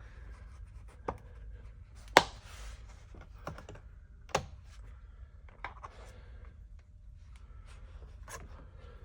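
Irregular sharp clicks and knocks of hands working on car door-sill trim, about six in all, the loudest about two seconds in followed by a brief rustle.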